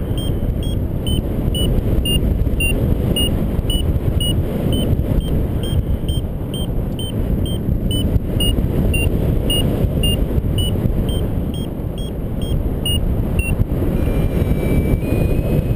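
Rushing airflow on the microphone in paraglider flight, with a variometer beeping about three times a second, its pitch shifting a little from beep to beep: the climb tone of rising air. Near the end the beeps give way to a steady tone for a second or so, then resume.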